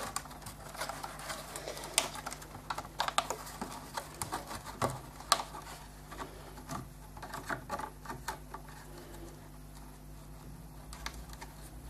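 Light, irregular plastic clicks and rustles as a nylon zip tie is threaded through drilled holes in a plastic RC car body shell and handled against it.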